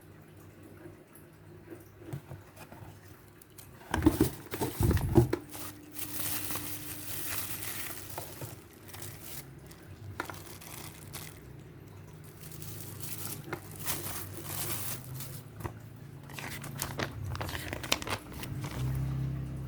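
Packaging being handled and unwrapped: plastic or paper crinkling and tearing, with a few sharp knocks about four to five seconds in.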